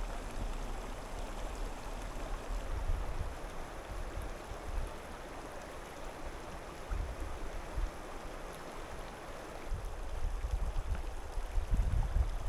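Shallow, rocky mountain stream trickling over stones: a steady watery hiss. Low, gusty rumbles come and go beneath it and grow heavier near the end.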